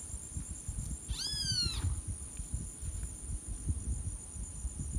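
Great kiskadee giving a single call about a second in, rising then falling in pitch and lasting under a second, over a steady high insect buzz and low wind rumble.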